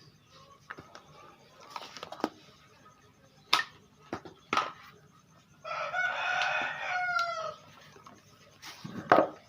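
A rooster crowing once, a call about two seconds long that falls in pitch at its end. A few sharp knocks sound before and after it, the loudest near the end.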